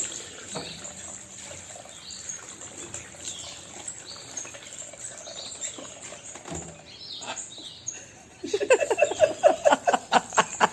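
Bird chirping in short, scattered high calls. About eight and a half seconds in, a much louder rapid run of repeated calls starts, about five a second.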